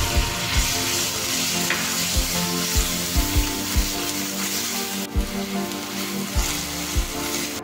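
Raw beef mince sizzling in hot oil with chopped garlic in a nonstick wok, stirred and broken up with a spatula.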